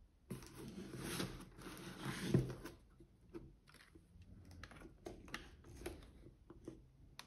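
Hands handling a plastic spring airsoft pistol and a chronograph: rustling for the first few seconds, loudest about two seconds in, then scattered light clicks.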